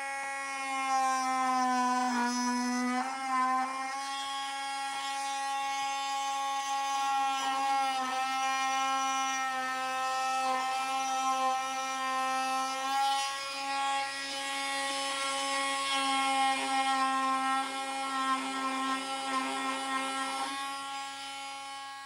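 Parkside 20V cordless oscillating multitool running with a steady, high buzzing hum, its blade cutting notches into a pine board.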